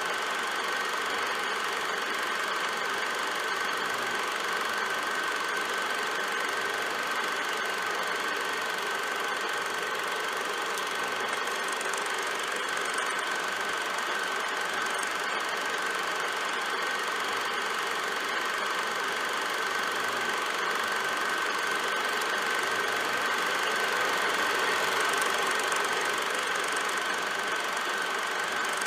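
Film projector running: a steady mechanical whirr with a constant high whine.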